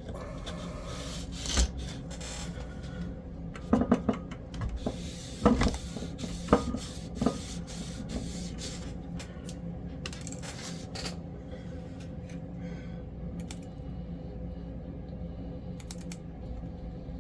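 Small clicks and taps from an N scale diesel model locomotive being handled and run on a test track, several of them close together in the first half, over a steady low hum; the locomotive is running poorly on dirty track.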